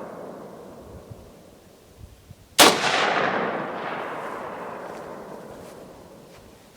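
An AR-15 pistol fires a single shot about two and a half seconds in: a sharp crack with a long echo that fades away over several seconds. Before it, the echo of the previous shot is dying away.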